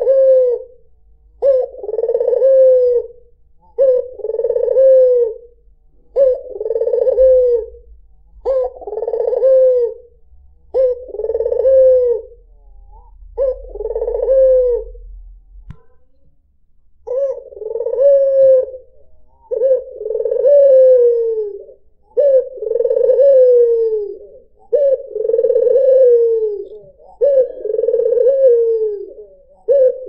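White puter (Barbary dove) cooing over and over: a low, rolling coo repeated about every two seconds, each ending in a falling tail, with one longer pause about halfway through.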